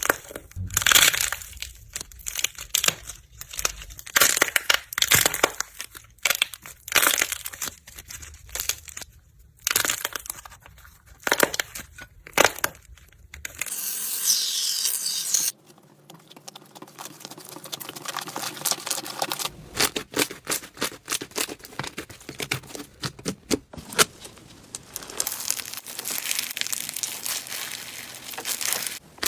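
Slime being squeezed and pressed by hand, crackling and popping in dense runs of sharp clicks. The texture changes abruptly a few times as one slime clip gives way to the next.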